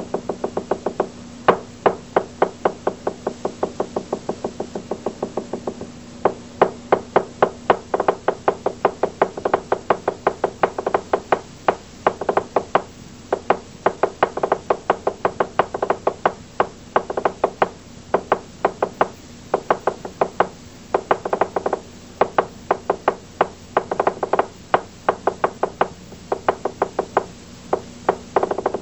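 Fast runs of sharp knocking strikes, several a second, broken by short pauses, over a faint steady low hum.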